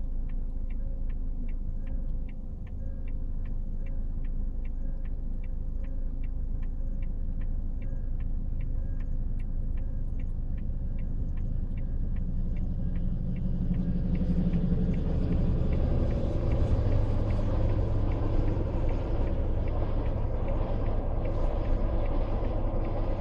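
Level-crossing warning bell ringing about twice a second over a steady low rumble. About halfway through, the rumble of a passing train rises and covers the bell.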